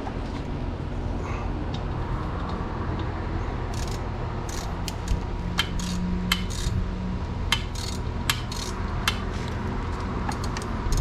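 Metal hand tool working a long bolt out, with scattered sharp metallic clicks and clinks that come thicker from about four seconds in, over a low steady hum.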